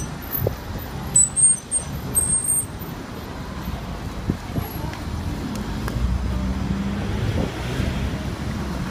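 Urban street traffic noise, with a vehicle engine running louder from about six seconds in. A few brief high squeaks sound in the first few seconds.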